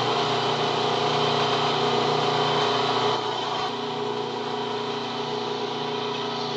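Metal lathe running steadily, a motor and drive hum with several steady tones over a rushing noise; it gets a little quieter about three seconds in.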